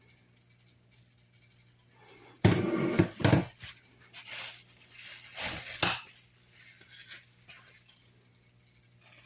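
Hard objects being handled: a burst of knocks and clattering about two and a half seconds in, more scattered clicks and knocks after, over a steady low hum.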